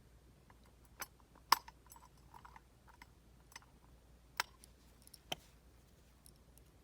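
Irregular light clicks and taps of a screwdriver and small screws against a dome camera's housing as the dome's screws are started and tightened, about a dozen in all, the sharpest about one and a half seconds in.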